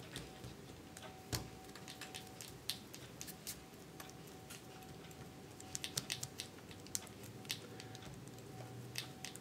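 Faint, irregular taps and rubbing of a palm rolling a ball of clay on a tabletop, a few quick taps bunched together about six seconds in, over a faint steady hum.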